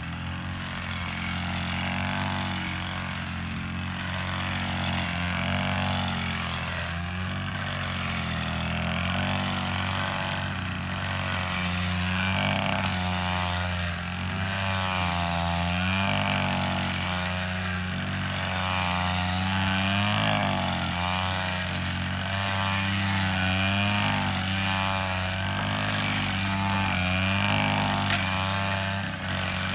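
Petrol brush cutter running at working speed while cutting grass. The engine's pitch rises and falls again and again.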